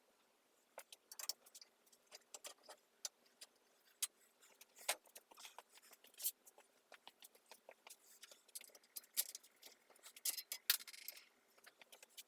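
Irregular light metallic clicks and taps of hand tools and metal parts being handled, with a denser, rasping run of clicks about nine to eleven seconds in.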